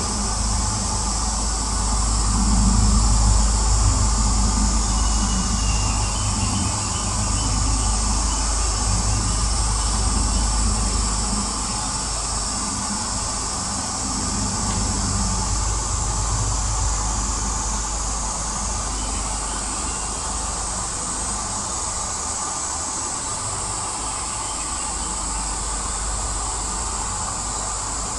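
Low, distant rumble of a Lockheed C-130 Hercules turboprop flying high overhead, strongest in the first half and slowly fading. The noise is heavy in low frequencies, reading about 8 to 12 dB higher on C weighting than on A weighting. A steady high-pitched hiss runs above it.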